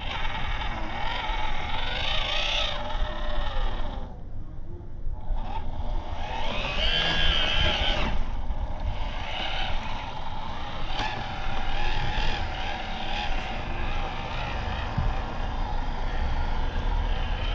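Small electric motor and gearbox of a 1:18 scale RC crawler whining as it drives, the pitch rising and falling with the throttle. The whine stops about four seconds in and starts again about a second later.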